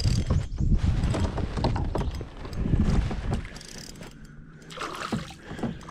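Spinning reel being cranked to bring in a hooked bass, its gears whirring with quick clicks, over heavy low rumble of handling for about the first three seconds; after that the sound drops to a few scattered clicks.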